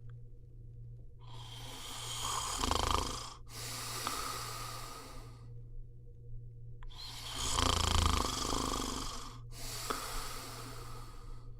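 A person snoring in slow, regular breaths: two snores about five and a half seconds apart. Each is a rough, rumbling stretch followed by a softer breathy one. A steady low hum runs underneath.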